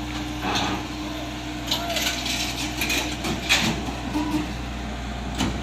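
Steady diesel engine hum of a Komatsu PC78UU excavator, with irregular metallic clanks and rattles from its steel parts; the loudest clank comes about halfway through.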